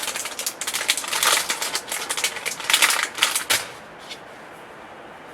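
Rapid crackling and rustling of something being handled close to the microphone, a dense run of small clicks that stops about three and a half seconds in, followed by a couple of faint ticks.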